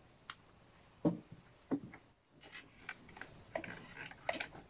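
Clothes rustling and hangers knocking as jackets are moved about on a wardrobe rail, in short scattered bursts with a few sharper clicks.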